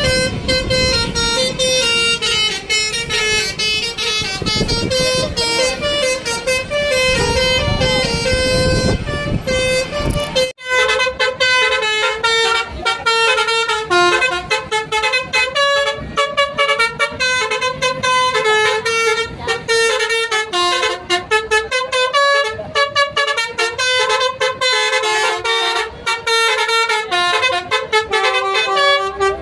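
Indonesian bus 'telolet basuri' musical horn playing a tune, a quick run of pitched horn notes stepping up and down, over a low rumble. It breaks off suddenly about ten seconds in and another horn tune of stepping notes plays on.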